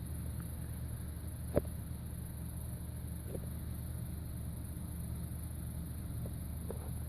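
Steady low background hum, with one soft click about one and a half seconds in and a few fainter ticks later.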